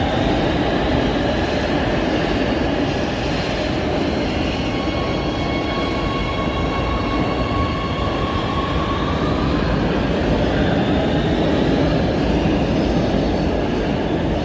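A train running on the rails: a steady rumble, with faint high whining tones that come in and drift a little in pitch through the middle seconds.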